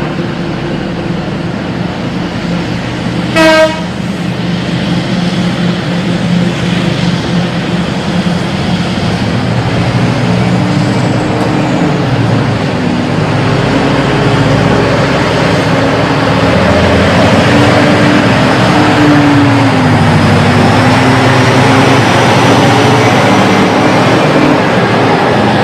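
A heavy diesel engine running steadily, its pitch rising and falling in the second half as it is worked, with one short horn toot about three and a half seconds in.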